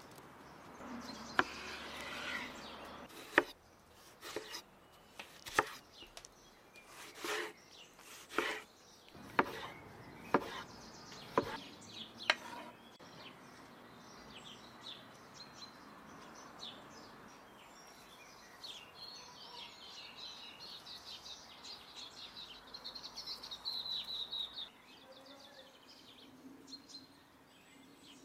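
A knife chopping on a wooden cutting board: about a dozen sharp strokes, roughly a second apart, through the first half. Birds chirp in the background, with a run of quick high chirps near the end.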